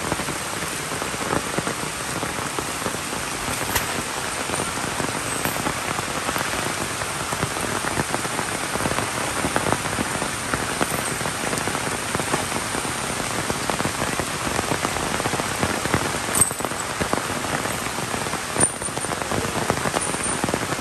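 Heavy rain falling steadily, with many separate drop hits.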